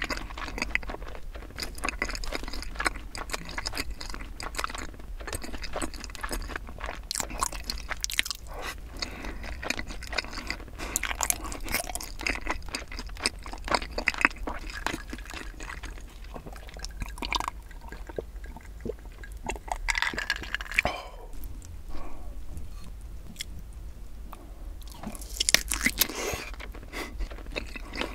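Close-miked chewing of a mouthful of sauced fried chicken and rice, with wet, crackly mouth sounds that thin out past the middle. A brief louder rustle comes near the end.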